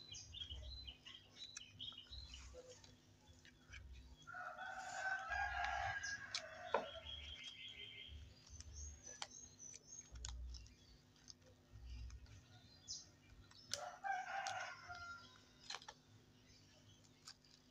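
A rooster crowing: one long crow about four seconds in and a shorter call near the end, over small clicks and taps of fingers working a plastic action-camera casing.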